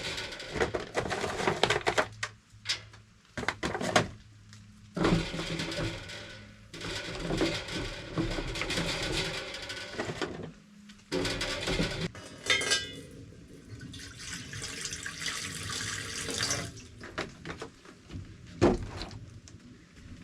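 Water poured and splashing in short spells, with knocks and clatter of handling between them, as water goes into the smoker's water pan and soaked hickory is handled.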